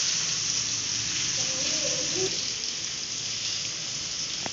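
Potatoes and okra frying in hot oil in a large aluminium pan, a steady sizzle as they are stirred with a ladle.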